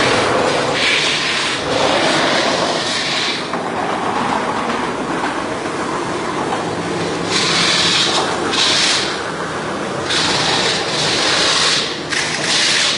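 Metal-spinning lathe turning a seven-foot sheet-metal dish, a continuous rattling rumble. Over it come several bursts of harsh scraping, each a second or two long, as the forming tool is pressed against the spinning metal.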